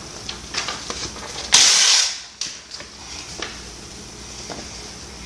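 Textbook paper being handled: light crackling rustles, then one loud, harsh rustle of a page lasting about half a second about a second and a half in, followed by faint ticks.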